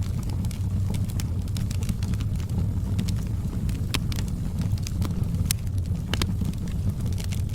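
Wood fire burning, with irregular sharp crackles and pops over a steady low rumble; a few louder snaps come past the middle.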